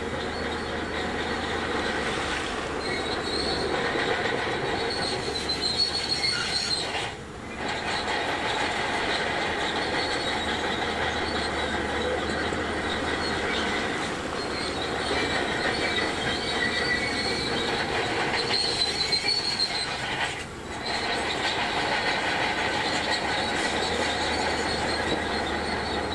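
Shantui DH17C2 crawler bulldozer working, its engine running under a metallic squeal and clatter from the steel tracks. The squeal comes and goes, and the whole sound drops briefly twice.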